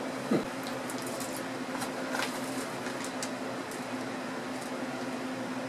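Steady hum of an electric fan running in a small room. A few faint crinkles and clicks come from a plastic candy bag being handled.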